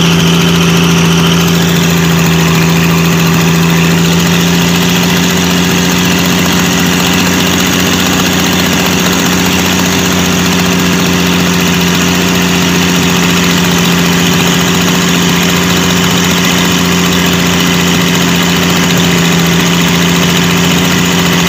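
Mitsubishi 6D16 inline-six diesel engine running at a steady, constant speed, loud and close, with an even low hum and no change in pitch.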